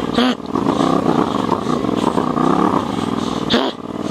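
Yamaha MT-07's parallel-twin engine running at low speed, its revs rising and falling with the throttle. There are two short sharp noises, one just after the start and one near the end.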